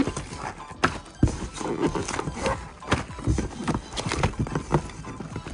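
Cardboard rustling and scraping with irregular knocks and taps as long cardboard rocket boxes are pushed and pulled about inside a cardboard shipping carton.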